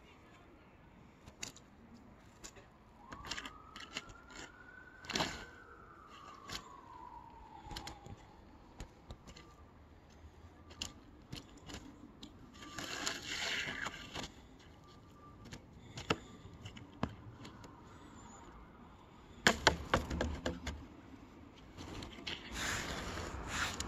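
Plastic snow shovel scraping and knocking on the pavement as snow is pushed along and cleared, in scattered strokes, with a quick run of sharp scrapes and knocks near the end.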